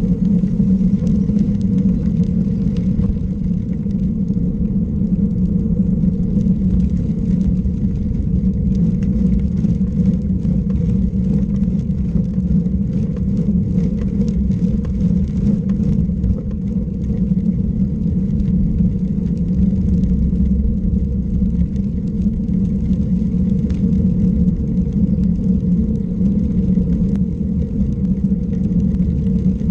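A vehicle cruising at a steady speed along a paved road, heard from a camera mounted on it: an even, unchanging hum with low road rumble underneath.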